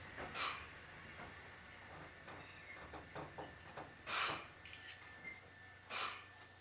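Interior sound of a Kotoden 1080 series (ex-Keikyu 1000 series) electric train car, with rattling, three sharp clunks and a steady thin high whine, as the car runs slowly with the brakes working.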